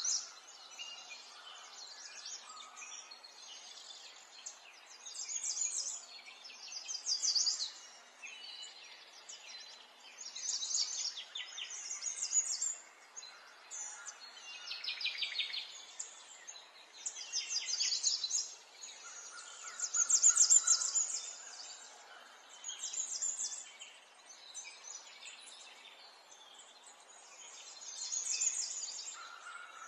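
Birds chirping and trilling in repeated bursts of rapid high chirps, over a faint steady hiss.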